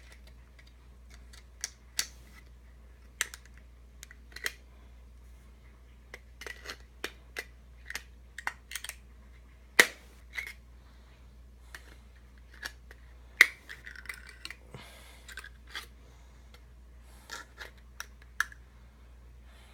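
Needle-nose pliers prying and peeling back the lid of a tin can: irregular sharp metal clicks and snaps, the loudest about ten seconds in and again at about thirteen seconds, over a steady low hum.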